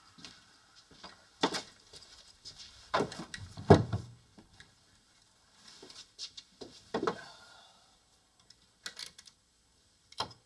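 A few scattered knocks and thuds, the loudest about halfway through, with faint rustling of things being handled in between.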